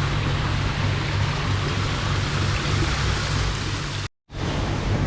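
Water from an ornamental water feature splashing steadily into a pond, an even rushing with a low hum beneath it. The sound cuts out completely for a moment about four seconds in.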